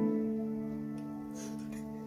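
Background music of held keyboard chords, with a new chord starting at the beginning. Faint scraping near the end, from a spoon in a steel plate.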